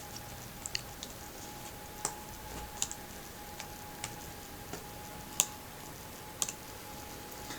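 About ten scattered light clicks and taps from laptop screen parts being handled and fitted during reassembly, over a faint steady high hum.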